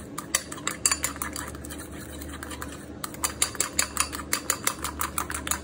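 A metal fork beating eggs and grated parmesan in a ceramic bowl, clinking rapidly against the side of the bowl, with a short lull about halfway through.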